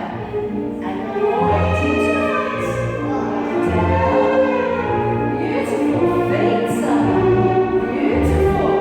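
Classical-style music with singing voices over sustained notes and a bass line.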